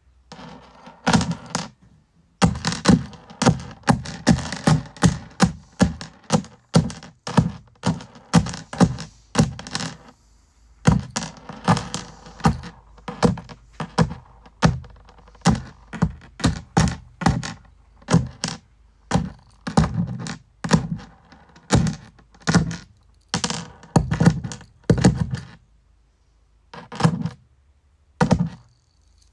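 Ratcheting screwdriver being turned back and forth to drive a screw, giving a steady run of sharp knocks about two a second, each with a short ringing tail. There is a short lull about ten seconds in, and the strokes become sparse near the end.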